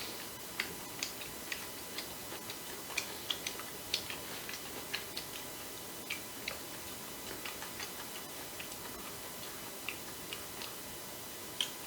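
Irregular small clicks and taps of people eating a meal, a few each second at uneven intervals, over a steady faint hiss.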